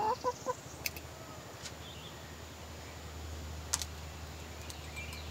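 A hen gives a short low murmur at the start, then a few faint, sharp, widely spaced clicks and clinks come from a glass jar and a syringe being handled. A faint low hum comes in about halfway through.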